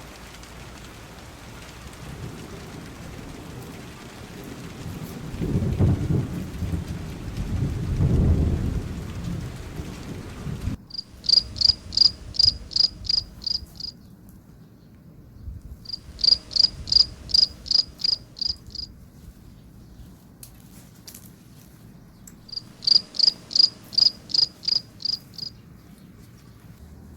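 Steady rain with two low rolls of thunder, cut off abruptly; then three separate bursts of rapid, high-pitched insect chirping, each a few seconds long at about three to four pulses a second.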